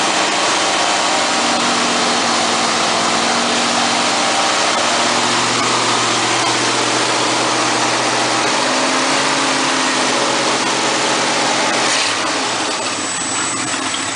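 Ford 351M V8 in a 1970 Ford pickup running loudly, then dying out about twelve seconds in: it stalls because the choke is not yet set.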